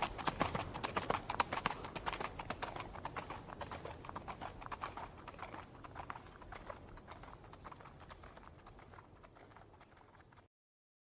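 A horse galloping, its hoofbeats a quick run of knocks that fades steadily away and dies out just before the end.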